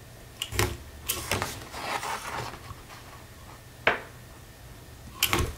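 Crop-A-Dile II hole punch clunking and clicking as it punches holes through the cardstock folio's spine, with paper rustling as the sheet is shifted between punches. The sharpest click comes about four seconds in.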